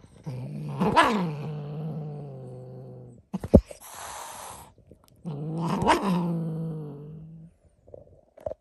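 Tabby cat growling: two long, low growls, each breaking into a brief rising yowl, with a sharp knock and a short hiss between them. The cat is grumpy and protesting.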